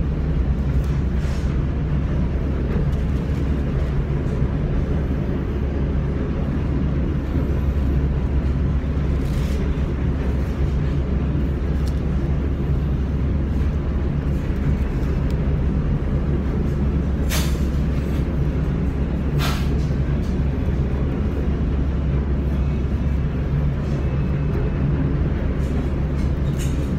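Steady low engine rumble heard from inside a vehicle's cabin, with two sharp clicks a couple of seconds apart around the middle.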